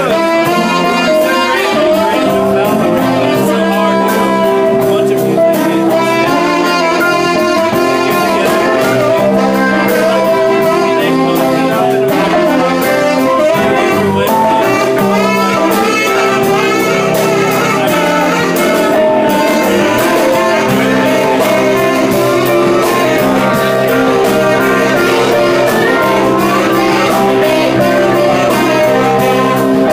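Live band playing an instrumental jazz-style groove, a saxophone playing the lead over electric guitars, keyboard and drums.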